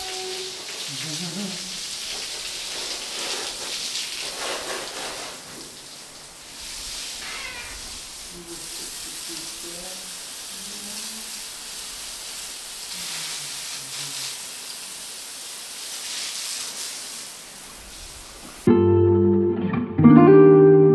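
Running water hissing steadily while a horse is washed, with faint voices in the background. Near the end, guitar music cuts in abruptly.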